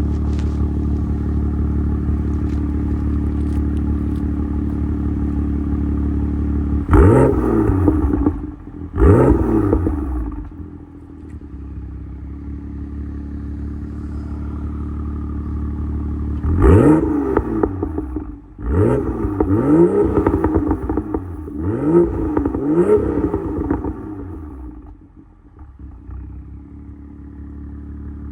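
BMW M2's turbocharged straight-six on its stock exhaust, idling steadily, then blipped twice about seven and nine seconds in. A run of about four quick revs follows from about halfway, each one rising sharply and dropping straight back to idle.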